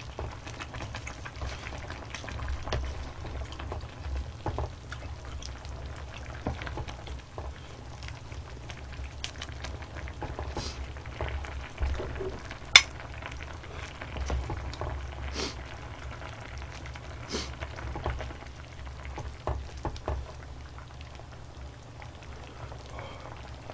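A wide pot of budae jjigae bubbling steadily, with a wooden ladle scraping and knocking against the pot and bowl as stew is scooped out. One sharp click about 13 seconds in stands out as the loudest sound.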